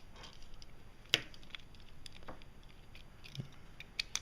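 Small plastic-and-metal clicks and taps of a coax cable's F connector being fitted into a compression tool, with one sharper click about a second in.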